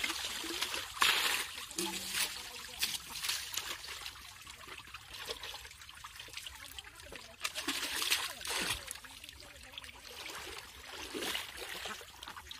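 Pond water splashing and trickling as bucketfuls are scooped up and thrown over a tractor's engine, several splashes, the loudest about a second in, with water dribbling off in between.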